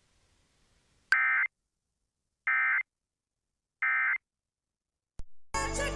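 Three short bursts of EAS/SAME digital data tones, evenly spaced about a second and a half apart: the End of Message code that closes a NOAA Weather Radio warning. Music starts near the end.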